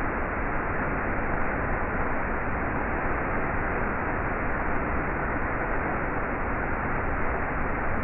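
Waterfall pouring over boulders into a pool: a steady, unbroken rush of falling water.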